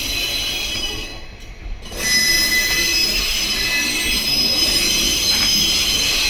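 Steel wheels squealing from a train of KiHa diesel railcars hauled by a switcher locomotive, several steady high-pitched tones over a low rumble. The sound dips out briefly about a second in and comes back louder at about two seconds.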